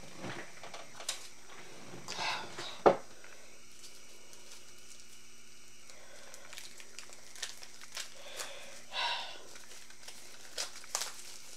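Rustling and crinkling of packaging as a parcel is opened by hand, in scattered bursts, with a sharp knock about three seconds in.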